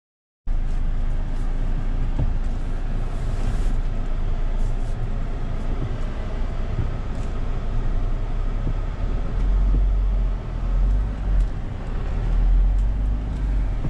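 In-cabin sound of a 2020 Mahindra Thar crawling over a rough dirt track: steady engine and drivetrain noise under a deep rumble, with a few light knocks. The rumble grows heavier near the end.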